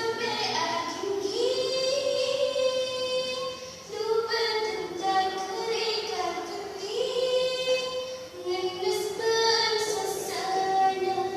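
A woman singing solo and unaccompanied with her natural, unamplified voice: long held notes with ornamented turns and slides between pitches, broken by short breaths.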